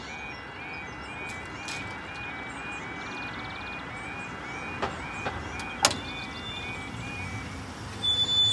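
Level crossing audible warning (yodel alarm) warbling about twice a second while the road barrier lowers under its motor, with a sharp clack about six seconds in; the alarm stops soon after, once the barrier is down.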